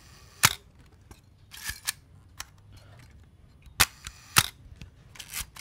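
Chinon CS SLR film camera's shutter firing at slow speed: a sharp click about half a second in as the shutter closes, a short ratcheting clatter of the film-advance lever being wound, then two more sharp clicks about half a second apart as the shutter opens and closes again, followed by another winding clatter near the end.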